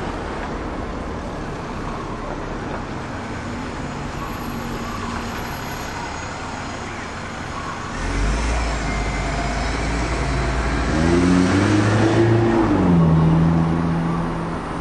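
Background road traffic, then about eight seconds in a heavy diesel vehicle's engine comes in loud and close, its pitch rising as it accelerates, then dropping and settling to a steady note near the end.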